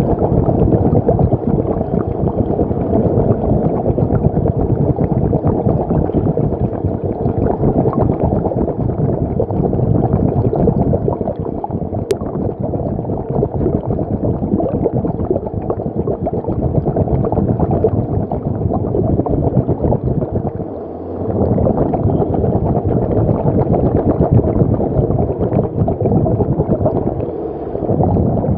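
Steady churning and gurgling of water, dipping briefly twice, with a faint steady hum underneath.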